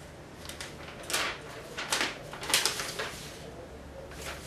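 Rustling and rubbing of TV packaging and paper being handled, in a few short crinkling strokes strongest between about one and three seconds in.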